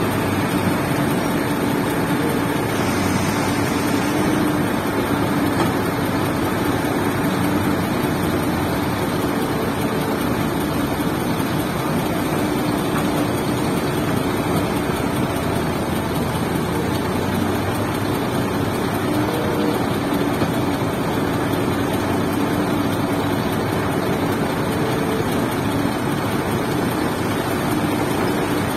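Diesel engine of a Doosan 340 crawler excavator running steadily under working load, a constant drone with a steady hum.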